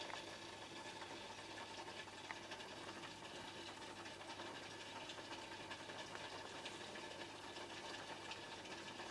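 Aquarium pump running with a steady low hum, along with faint bubbling and small crackles from aeration in the tank.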